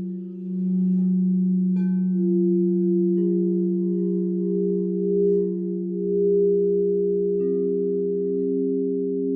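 Several singing bowls ringing together in long, steady, pure tones that overlap. A new bowl is struck about two seconds in, another about three seconds in, and a lower tone joins about seven and a half seconds in.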